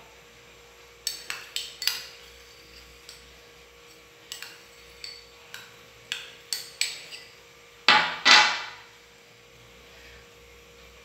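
Metal spoon clinking and scraping against a small glass cup as creamy requeijão is scooped out, in a run of short sharp clicks. Near the end come two louder knocks, a moment apart.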